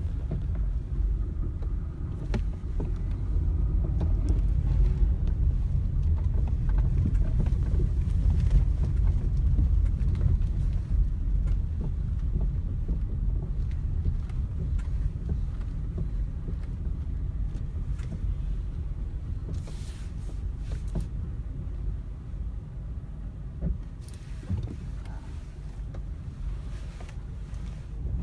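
Low rumble of a Hyundai/Kia compact SUV driving, with irregular light knocks and rattles from the steering: the knocking common to these cars' electric power steering and steering shaft.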